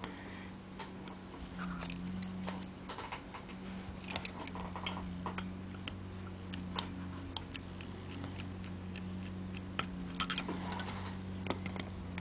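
Scattered small metal clicks and taps of clarinet keys, pivot screws and a screwdriver being handled and laid down during disassembly, over a steady low hum.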